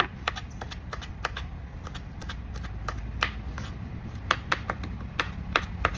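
Kitchen knife slicing aloe vera leaves on a plastic cutting board: short sharp clicks of the blade striking the board, irregular, about two or three a second, over a steady low rumble.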